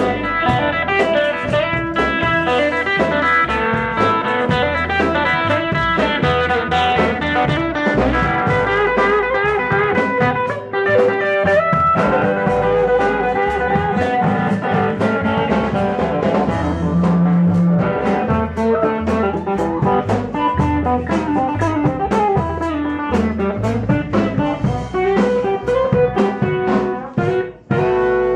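Live band playing an upbeat tune, acoustic guitar strumming over a steady drum beat.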